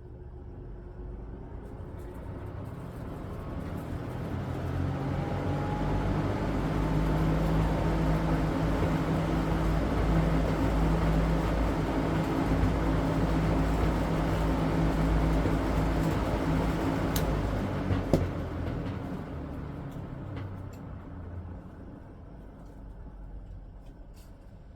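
Mitsubishi E-50S3 industrial pressure exhaust fan spinning up to speed, with a rising hum and a whoosh of moving air, then running steadily. After a sharp click a little past halfway it slowly winds down as the blades coast to a stop.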